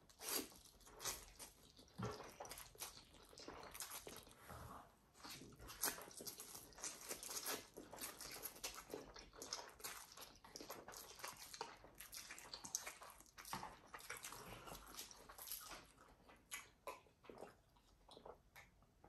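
Two people slurping fire hot spicy instant noodles and chewing them, a run of irregular wet slurps and mouth sounds close to the microphone.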